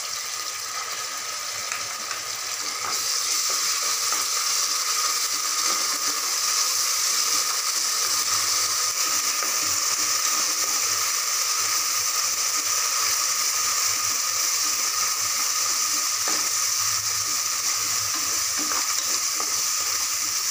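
Shallots, green chilies and ginger-garlic paste sizzling in groundnut oil in an aluminium pressure cooker while a spoon stirs them. The sizzle grows louder about three seconds in.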